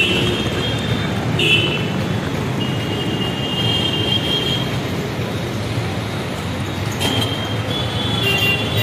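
Busy street traffic noise: motorcycles and scooters running past close by, with a steady hum. Several thin high-pitched tones come and go, the longest lasting about two seconds.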